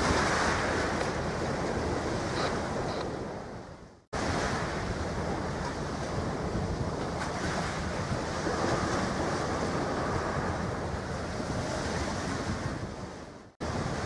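Outdoor wind rushing and buffeting the microphone, a steady rough roar with no engine or horn tones. It fades out twice, about four seconds in and near the end, each time starting again abruptly at a cut.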